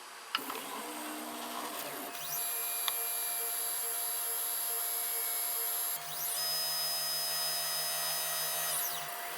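3D printer stepper motors whining as the axes move through an auto bed-leveling routine. Their pitch glides up as each move starts and falls as it stops, with a couple of sharp clicks along the way.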